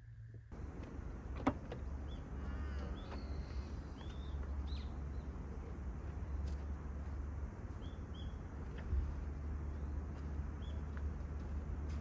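Open-air ambience: a steady low rumble with small birds chirping now and then in short rising calls, and one sharp click about a second and a half in.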